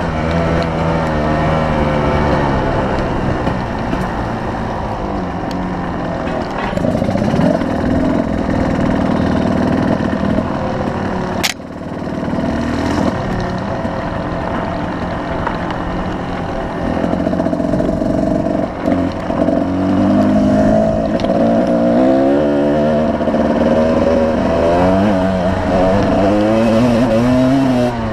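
2005 Kawasaki KDX220R's two-stroke single-cylinder dirt-bike engine running under way on a trail ride, its revs rising and falling with throttle and gear changes. There is a brief click and dropout a little before the middle.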